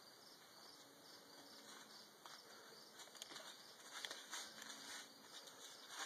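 Near silence: faint steady hiss of room tone, with a few soft ticks from about two seconds in.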